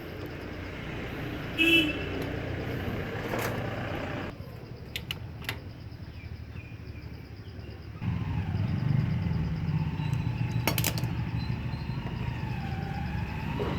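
Metal tools clinking now and then against the motorcycle's front-end parts as the clutch cable and handlebar fittings are worked loose, with a vehicle's low engine rumble passing from about eight seconds in.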